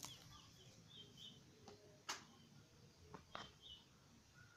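Faint chirping of small birds, short high notes here and there, with a few sharp clicks, the loudest about two seconds in.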